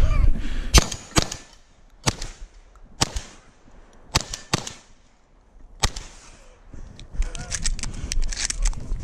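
Shotgun being fired in a string of sharp shots, several spaced about half a second to a second apart, over the first six seconds. Near the end come handling clatter and rustling.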